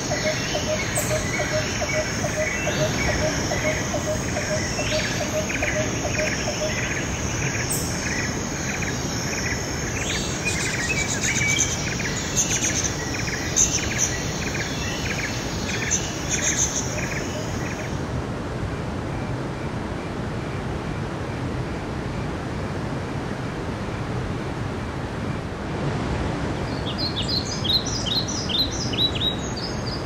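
Stream water rushing steadily over rocks, with small birds chirping and trilling over it through the first half and again near the end.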